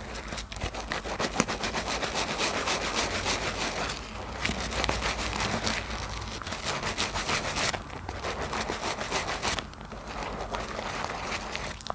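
Soap being lathered in thick soapy foam: wet rubbing with a steady run of small crackles and pops from the bubbles, swelling and easing every few seconds.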